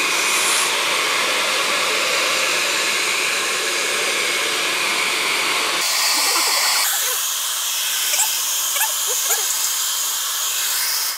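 Handheld hair dryer blowing steadily over an aluminium-foil-covered head, heating bleach on the hair so the colour lifts faster. Its sound shifts about six seconds in and stops suddenly at the end.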